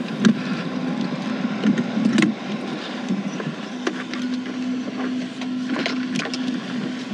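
Golf buggy driving across the course: a steady motor hum with scattered rattles and knocks from the cart.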